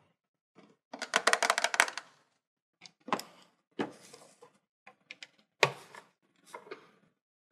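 Hard plastic clicks and clacks from a Hello Kitty toy refrigerator being handled. A quick rattle of clicks comes about a second in, then separate clicks and knocks as its double doors are pulled open.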